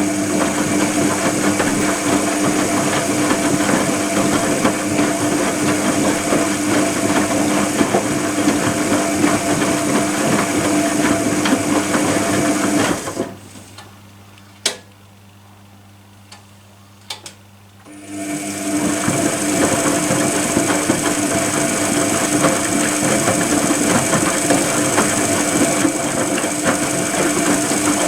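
Privileg Compakt 92 washing machine's drum motor running with a steady whine. It stops about 13 seconds in, leaving a few clicks, and starts again about five seconds later: the drum's wash rhythm of turning, pausing and turning again.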